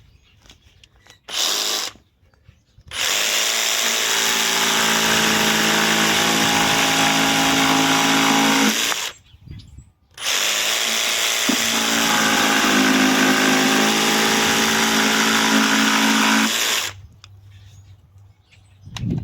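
Ryobi PBLJS01 brushless jigsaw running: a short blip about a second in, then two steady runs of about six seconds each that start and stop sharply.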